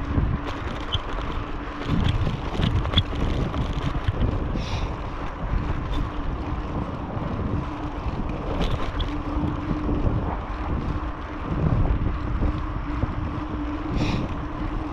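Wind buffeting the microphone of a handlebar-mounted camera on a moving bicycle, over a low rumble of tyres on a rough, patched road, with a few short knocks from bumps.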